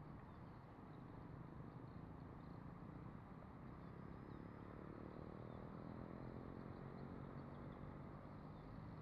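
Faint, distant hum of an E-flite Habu STS electric ducted-fan jet in flight, a little stronger in the middle, over low outdoor noise.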